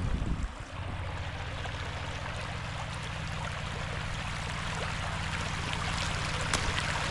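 Shallow mountain stream flowing steadily, with a few sharp clicks near the end.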